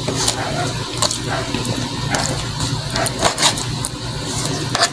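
Kitchen knife slicing chicken liver on a plastic cutting board: a few irregular taps of the blade against the board, over a steady low hum.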